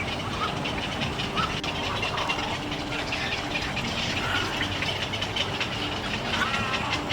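Egrets calling: a continuous rapid, dry clicking chatter, with short gliding calls breaking in every second or two.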